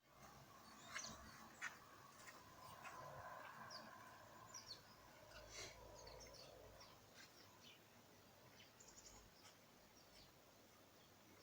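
Small garden birds giving faint, short chirps and calls, many separate notes one after another, over a faint steady background hum.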